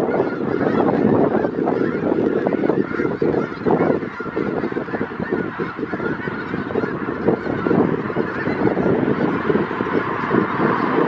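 A huge flock of snow geese, thousands of birds, calling all at once in a dense, unbroken chorus of overlapping calls.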